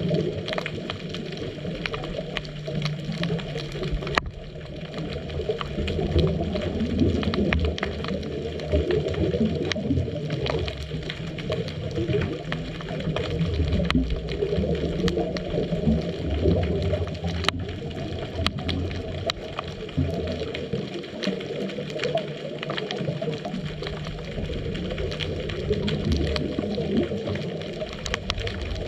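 Muffled underwater sound through a dive camera's housing: a low, gurgling rumble of scuba bubbles that swells and fades every few seconds, with scattered sharp clicks, two stronger ones about four seconds in and near the two-thirds mark.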